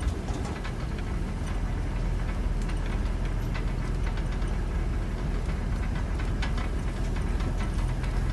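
Steady low rumble with scattered light ticks and rustling, with no clear pattern to the ticks.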